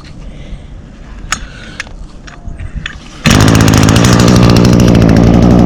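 Echo SRM-225 string trimmer's small two-stroke engine starting on a pull of its i30 easy-start recoil starter about three seconds in, then running steadily and loudly.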